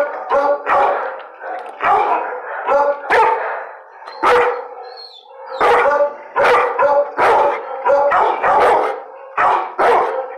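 A dog barking repeatedly, about two barks a second, with a pause of about a second and a half near the middle.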